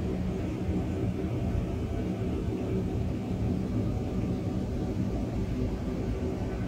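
Steady low rumbling ambient drone with several faint held tones: a 'sound of space' track, presented as electromagnetic signals converted into audible sound.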